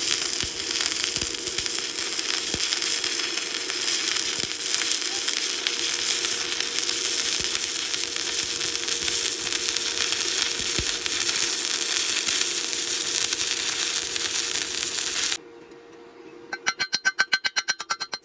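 Stick-welding arc crackling and hissing steadily for about fifteen seconds, then cutting off suddenly as the arc is broken. Near the end, fast rhythmic guitar music starts.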